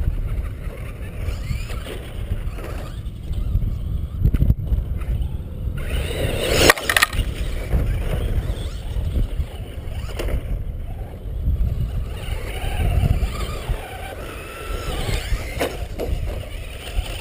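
Traxxas R/C truck's motor whining, its pitch rising and falling as the truck drives over the dirt track, with a sharp clatter about seven seconds in. Wind buffets the microphone with a steady low rumble throughout.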